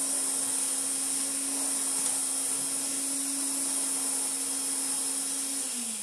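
1980s Hoover Constellation 867a canister vacuum running: a steady motor hum under a rushing air hiss. Just before the end the hum starts to fall in pitch and the sound quietens as the motor slows down.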